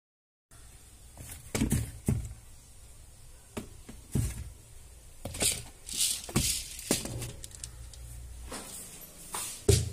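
Plastic storage tubs and jars knocking and rattling against each other on a kitchen shelf as they are shifted about and a tub of sago pearls is taken out. There are a dozen or so separate clunks, and the loudest comes near the end.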